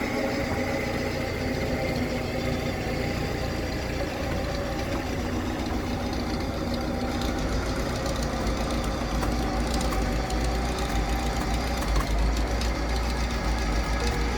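Lada Niva VAZ-21213's engine idling steadily, its low rumble growing stronger about a third of the way in.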